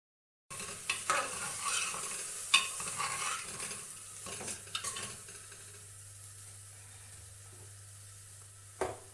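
Chopped vegetables sizzling in hot oil in a pressure cooker while a metal ladle stirs them, scraping and clicking against the pot. It starts abruptly about half a second in; after about five seconds the stirring stops and a quieter, steady sizzle goes on.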